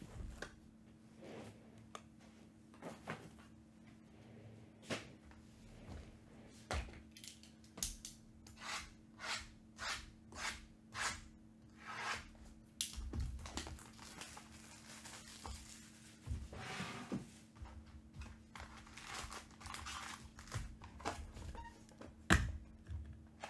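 Cardboard trading-card hobby boxes being set down and shifted on a table with dull knocks and thunks, then a box being torn open and its foil card packs handled, with papery tearing and crinkling.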